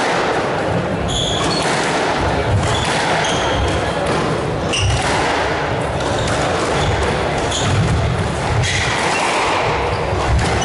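Squash rally: the ball smacking off rackets and the court walls again and again, with short high squeaks of shoes on the wooden court floor, over a steady hall noise.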